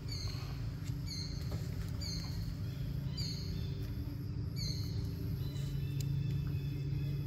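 Steady low rumble with a bird's short, high, falling chirp repeating about once a second.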